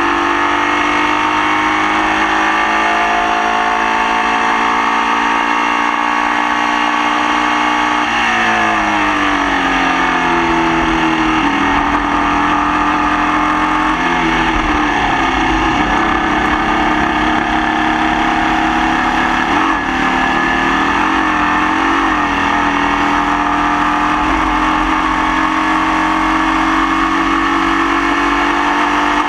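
Formula Vee racing car's air-cooled Volkswagen flat-four engine under way. Its pitch climbs slowly through a long pull, then drops in several steps about a third of the way in as the car slows for a corner, and stays roughly level after that. The engine has the nasty misfire it suffered all race.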